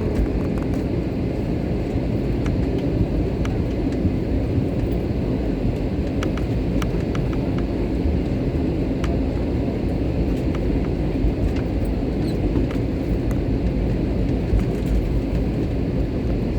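Airliner cabin noise: the aircraft's jet engines giving a steady low rumble, with light scattered clicks and rattles from the cabin.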